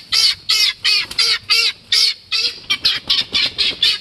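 Guineafowl calling, a rapid run of short, harsh calls, about four a second.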